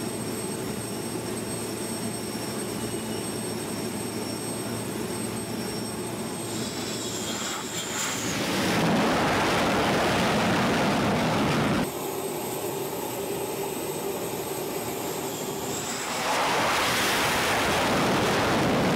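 F/A-18 Hornet jet engines on a carrier deck during arrested landings: a steady jet whine with high whistling, then loud roars as the jets touch down and catch the arresting cable. One roar runs from about eight seconds in and cuts off suddenly at about twelve seconds; another starts at about sixteen seconds.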